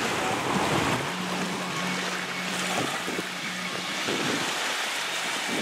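Wind rushing across the microphone over choppy water, with waves lapping; a faint steady low hum runs through the middle.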